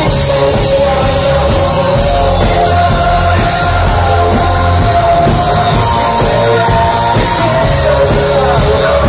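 Electronic rock band playing live, with heavy bass, synth lines and a sung vocal, loud and steady throughout.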